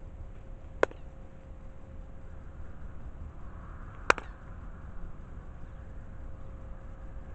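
Two sharp cracks about three seconds apart, the second the louder, from a karateka's hand strikes while performing a Shotokan kata, over a steady low rumble.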